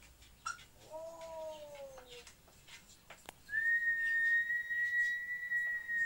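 African grey parrot vocalising: a short call, then a falling pitched call. About three and a half seconds in comes a long, clear, steady whistle on one pitch, held for nearly three seconds and dipping at the end.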